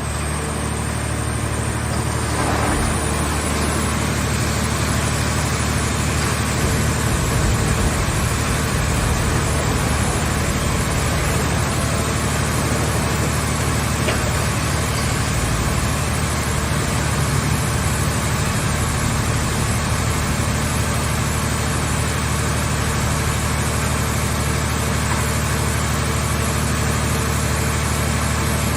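Car-shell scrap baler's power unit running steadily with an even low engine hum.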